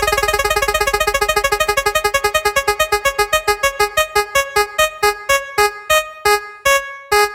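Prize-wheel spin sound effect: a rapid train of identical electronic keyboard-like blips that steadily slows and stops about seven seconds in, as the wheel comes to rest.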